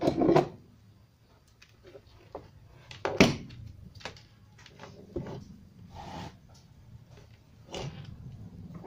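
Scattered knocks, clicks and scrapes as an amplifier circuit board and its wires are handled and pulled out of a tube-style Bluetooth speaker cabinet, with the sharpest knock about three seconds in.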